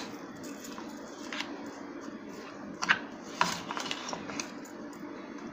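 A steel spoon stirring sesame seeds into dry garlic chutney in a steel mixer jar: a few sharp clinks and scrapes of spoon on metal at irregular moments, over a faint steady hum.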